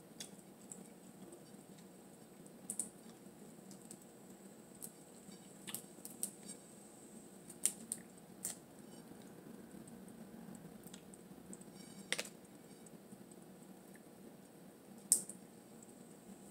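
Blue crab shell being cracked and picked apart by hand: scattered sharp clicks and snaps, about eight of them, the loudest about fifteen seconds in.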